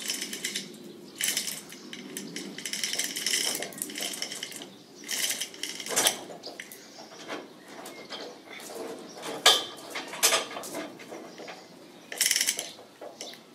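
Manual chain hoist being worked to lower a steel car body onto its chassis: repeated bursts of chain rattle and ratchet clicking, with a few sharp metal knocks, the loudest about two-thirds of the way through.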